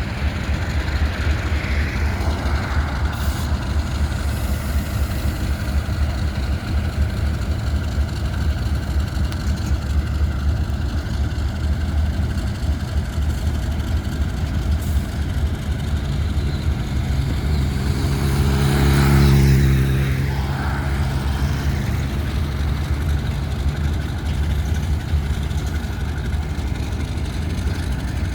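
Diesel locomotives, an EMD GR-12 and an ALCo RSD-16, running as they haul a train of empty grain hoppers away. A steady low engine rumble swells to its loudest about two-thirds of the way through, then eases back.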